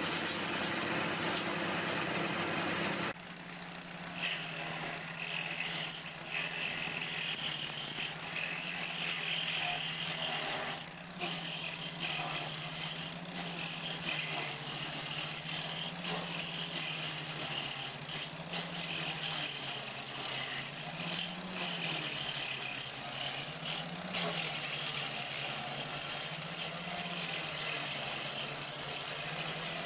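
Diesel engine idling steadily with a light rattle, its pitch wavering slightly. The sound changes abruptly about three seconds in, like a cut to another recording.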